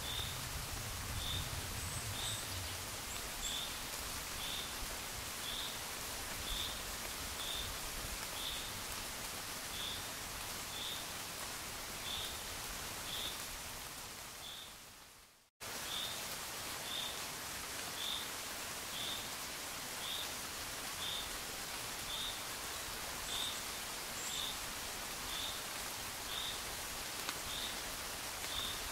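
Steady gentle rain, with a short high chirp repeating about once a second over it. About halfway through the sound fades out to silence and then cuts straight back in.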